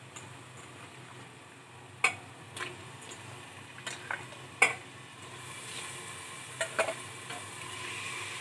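Raw mutton pieces tipped into hot fried masala in a pressure cooker, a spatula clacking and scraping against the pot several times, with a frying sizzle that grows louder from about halfway through as the meat hits the hot oil.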